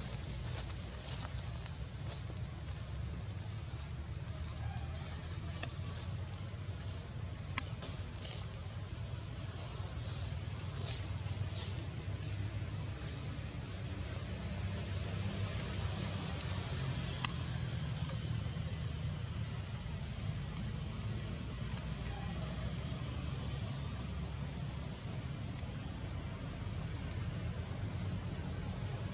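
Steady high-pitched insect chorus, with a low rumble of wind on the microphone underneath.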